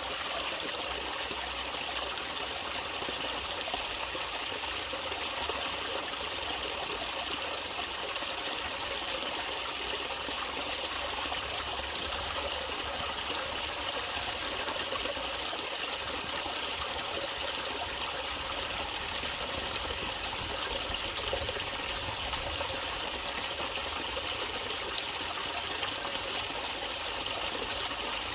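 Stream water trickling and splashing steadily, an even, unbroken rush of water.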